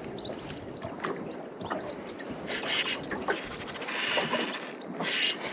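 Water lapping and slapping against the hull of a small boat, with light wind on the microphone. Louder splashy hissing comes twice in the second half.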